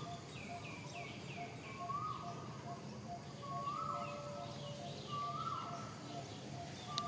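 Birds calling: a call that rises and then drops away, repeated about every second and a half to two seconds, with quick higher chirps and a steady, rapid series of short pips beneath.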